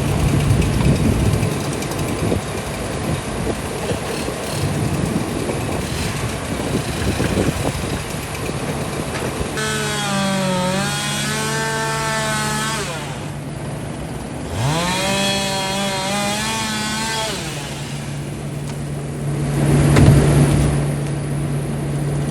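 Chainsaw cutting through a pine tree, then revving up and down twice over the steady drone of another engine. A louder swell comes about twenty seconds in.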